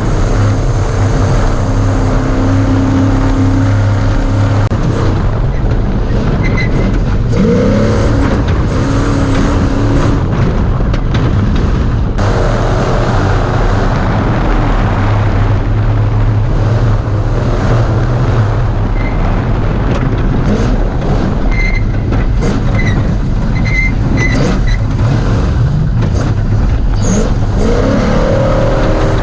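Class 1450 Ford Ranger desert race truck running hard at speed, its engine note rising and falling with the throttle under steady loud noise.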